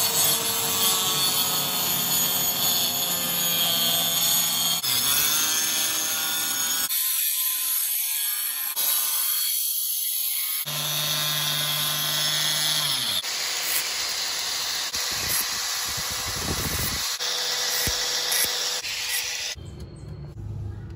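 Small handheld circular saw cutting through plywood, its motor whining at a high pitch over the rasp of the blade. It runs in several stretches that change abruptly, then stops shortly before the end.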